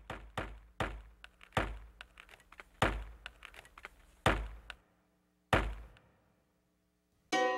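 Axe chopping into wood: heavy, irregular blows with lighter knocks in between, the heaviest about one a second, stopping about six seconds in.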